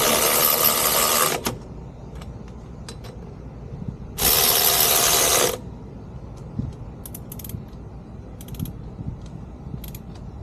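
Cordless impact wrench running in two bursts of about a second and a half each, spinning lug nuts onto a wheel, with faint metal clicks between and after.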